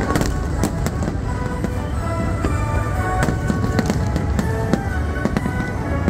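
Aerial fireworks shells bursting in rapid, irregular bangs, several a second, over symphony orchestra music with long held notes.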